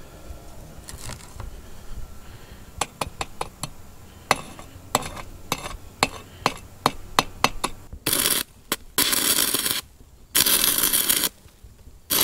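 Chipping hammer knocking slag off a fresh stick weld on thin angle iron, a dozen or so sharp clicks at irregular spacing. From about eight seconds in, a stick-welding arc fed by a Lishen LTO battery pack burns in four short bursts of about a second each. The arc is running far too hot for the thin steel, at around 200 amps, and is spattering.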